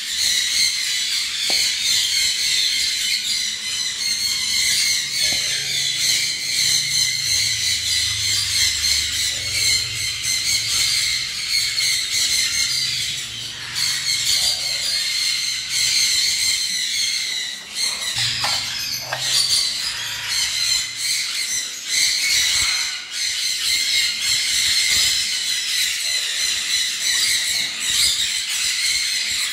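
Many caged birds, parrots among them, calling all at once in a steady high chatter with shrill squeals.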